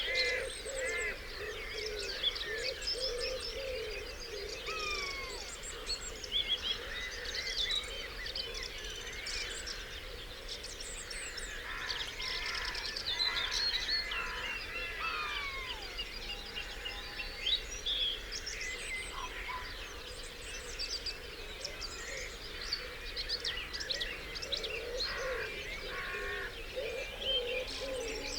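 Dawn chorus: many songbirds singing at once in dense, overlapping phrases of quick chirps, trills and whistles. Lower wavering calls sit beneath them at the start and again near the end.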